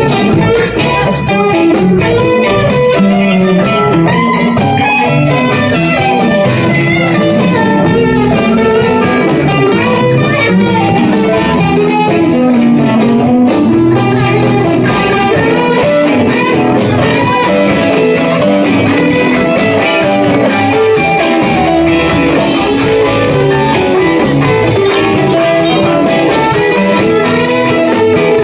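Live band playing with the full amplified sound of electric guitars, electric bass and a drum kit.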